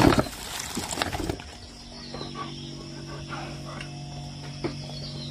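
Plastic bag rustling and dry dog kibble rattling as it is scooped into a bowl, for about the first second and a half. After that, a dog eats the kibble from the bowl, with a few faint clicks over a steady low hum.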